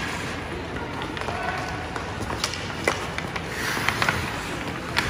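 Ice hockey play on a rink: skate blades scraping the ice and hockey sticks clacking on the puck and ice, with a few sharp clicks over a steady hiss of rink noise.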